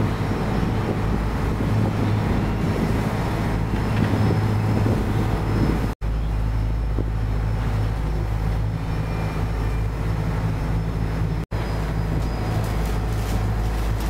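Fishing boat's inboard engine droning steadily under way, heard from inside the cabin, with a low, even hum. The sound drops out for an instant twice, about six seconds in and near the end.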